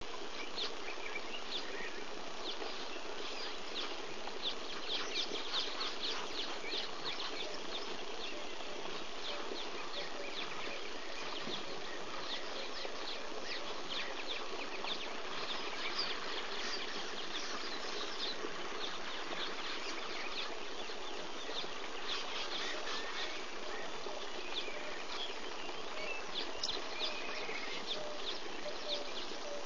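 Bush ambience of insects and birds chirping: a steady chorus of many short high chirps over a constant hiss.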